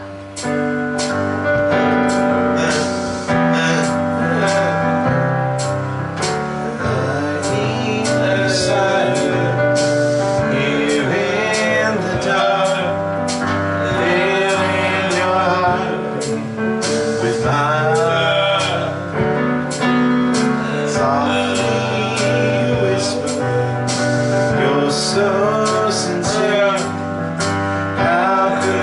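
Music with a male voice singing over several instruments and a regular percussion beat, starting abruptly at full level just after the start.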